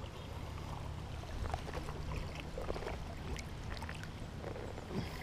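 Shallow river water splashing and trickling around hands holding a hooked fish in the current while it is being unhooked, with many small scattered splashes and ticks over a steady low rumble.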